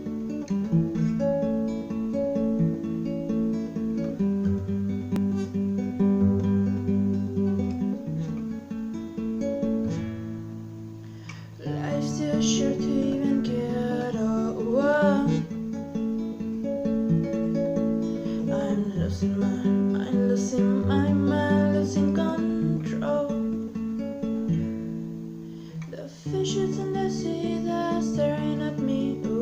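Acoustic guitar played in a repeating strummed pattern as the instrumental introduction to a song, easing off briefly about 11 and 26 seconds in before picking up again.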